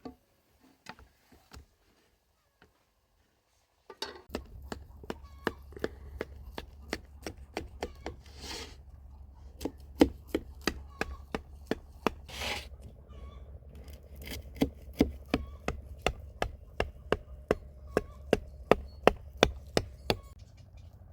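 Knife chopping food on a cutting board: sharp, steady strokes at about three a second, starting about four seconds in after a few scattered taps. There are two short scraping hisses partway through.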